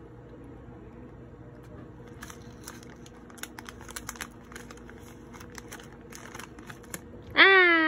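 Foil-lined plastic snack bag crinkling in scattered bursts as a small child's hand rummages inside it. Near the end a voice breaks in with a loud, long 'ah' that falls slightly in pitch.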